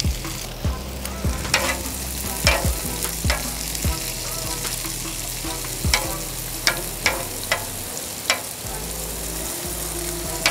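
Bacon, potatoes, and peppers and onions in bacon grease sizzling on a Blackstone flat-top griddle. Sharp clicks come now and then as metal tongs tap and scrape the steel while tossing the peppers and onions.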